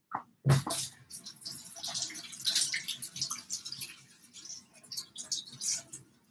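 Kitchen tap running, water splashing unevenly as an avocado is rinsed under it. A high heel knocks once on the tile floor about half a second in.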